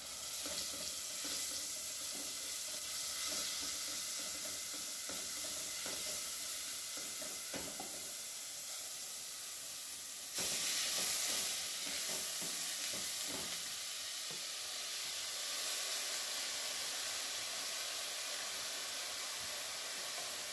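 Rice sizzling in a hot stainless-steel pot as it is sautéed and stirred with a wooden spoon, the spoon knocking now and then against the pot. The sizzle jumps louder about ten seconds in, when the washed rice is poured in.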